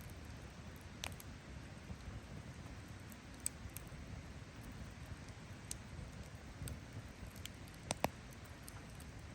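Campfire burning, the wood crackling with scattered sharp pops over a low steady rumble, the loudest two pops coming close together about eight seconds in.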